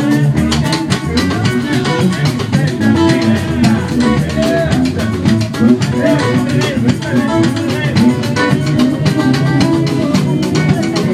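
Live band playing a busy groove with a steady beat: electric guitar with congas and drum kit.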